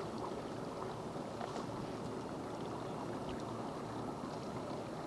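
Steady low drone of a fishing boat underway at trolling speed: the motor running evenly with water noise along the hull.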